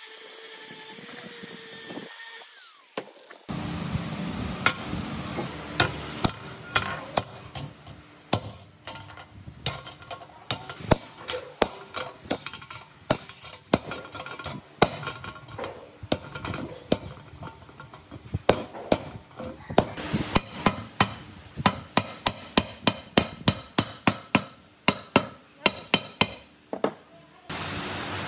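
Hammer blows on a metal rod held against the inside of a sheet-steel electric motor fan cover resting on a steel block, straightening the cover: a long run of sharp metallic knocks, about two or three a second. At the start an angle grinder with a wire wheel runs for a couple of seconds, and near the end a steady hiss of liquid being poured begins.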